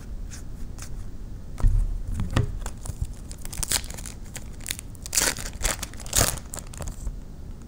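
Trading-card packs being opened and handled by hand: foil pack wrappers crinkling and tearing, and cards being slid through, in short irregular rustles.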